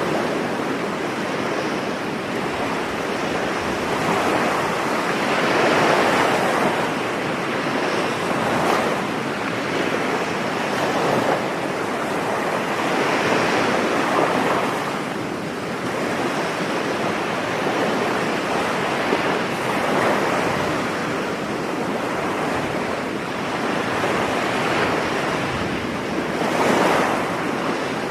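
Ocean waves breaking and washing on a beach, a continuous rush that swells and eases every few seconds.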